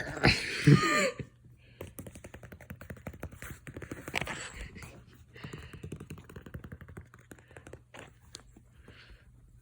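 A pet's loud, short sneeze in the first second, followed by a few seconds of quick light clicks and taps, with a few fainter scattered sounds after.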